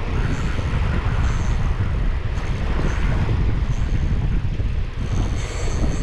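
Wind buffeting the microphone: a steady, loud low rumble that rises and falls.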